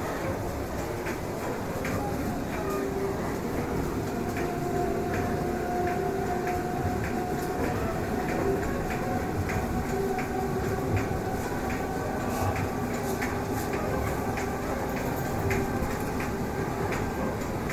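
EP2D electric multiple unit running between stations: a steady rumble of wheels on the rails, with frequent light clicks and a faint steady hum.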